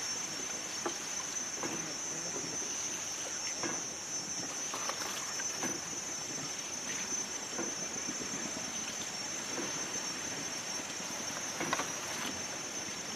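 Water lapping and trickling around a small wooden rowboat as the oars dip and pull, with soft irregular splashes. A steady high-pitched hiss sits above it.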